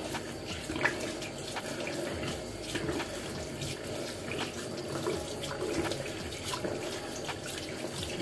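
Bathroom sink tap running in a steady stream while a face is rinsed under it, with scattered small splashes as hands scoop and rub water over the face.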